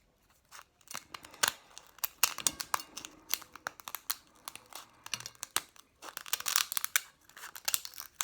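Crinkling, tearing and many short sharp clicks as a pearl oyster is handled and worked open.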